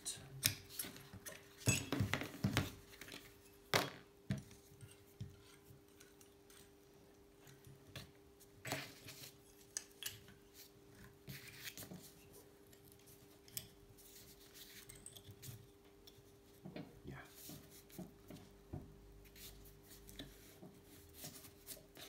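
Small metal clicks and knocks from a small bench vise being handled and tightened onto a paper-wrapped bicycle seat post, most frequent in the first few seconds and sparser after. A faint steady hum sits underneath.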